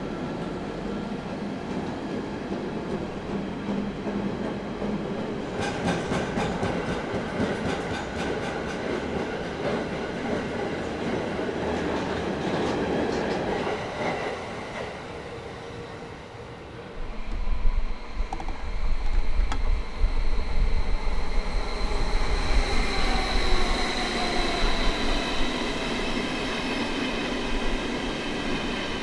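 Train moving through a railway junction: wheels rolling with a run of sharp clicks over the rails. About halfway through, a louder, deeper rumble sets in, with several high whining tones over it.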